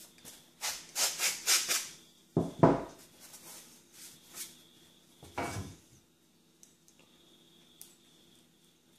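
A Disston handsaw's wooden handle and steel blade rubbing and scraping as the handle is worked off: a quick run of about five scraping strokes about a second in, then two louder, deeper rumbles as the steel blade is moved, the loudest at about two and a half seconds.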